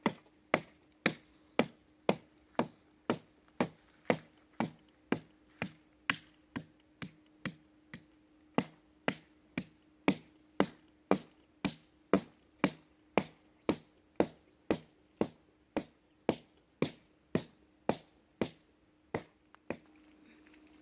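Sharp knocks or taps repeating at a steady beat of about two a second, over a faint steady hum.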